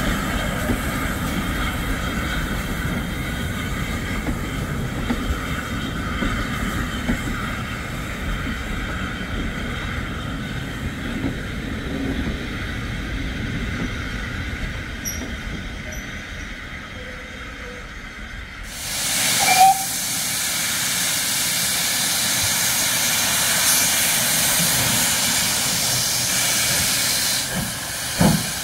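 Steam train of coaches rolling along the rails behind GWR 0-6-2 tank no.6695, the rumble slowly fading as it draws away. About two-thirds of the way through, a sudden loud, steady hiss of a steam locomotive letting off steam takes over.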